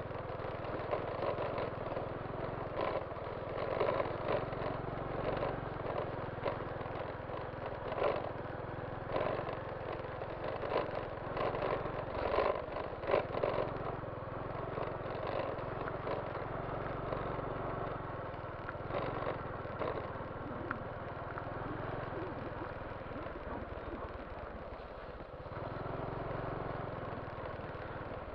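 A motorcycle engine running steadily, with irregular knocks and rattles over it.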